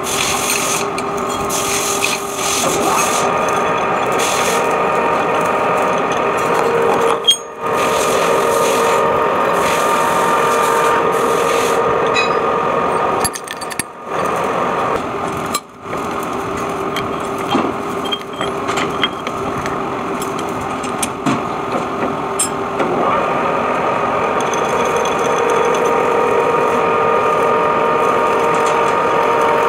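Metal lathe running with a steady whine while a drill in the tailstock chuck bores into the end of a spinning steel shaft, with a scraping cutting noise. The sound drops out briefly three times.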